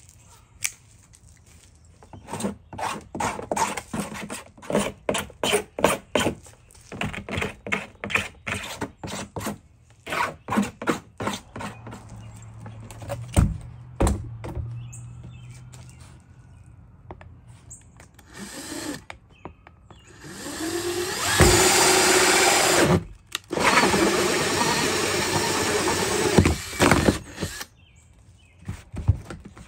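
A series of short, quick scraping strokes as burrs are cleaned off the cut edges of a plastic bin, then a cordless drill with a hole saw bit cutting through the plastic in two runs of a few seconds each.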